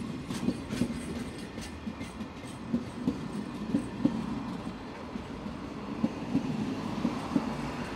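Freight train's container flatcars rolling past close by, wheels clattering on the rails in a continuous run of short knocks over a steady rolling rumble.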